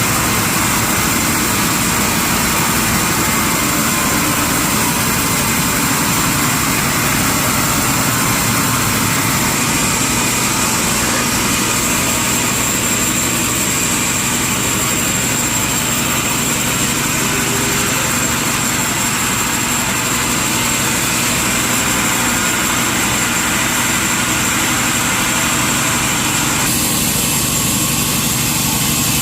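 Sawmill machinery running steadily, a loud, dense mechanical noise with no let-up; its high, hissing part changes about 27 seconds in.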